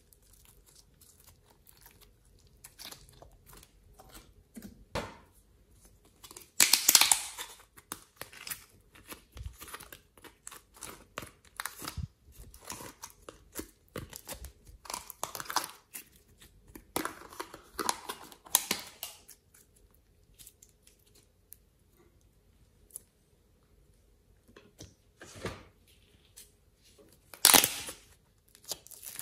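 Hands squishing and stretching glossy slime: a continuous run of sticky crackles, clicks and small pops. There are a few louder crinkling bursts, the loudest near the end as a plastic slime tub is opened.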